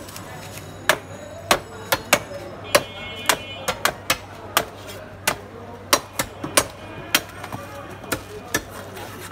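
Fish being chopped: a string of sharp, irregular knocks of a blade striking a wooden chopping block, about one to two a second, with a brief metallic ring about three seconds in.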